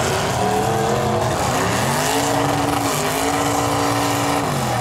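Demolition derby car engines running hard. One engine revs up about two seconds in, holds high, and drops back near the end.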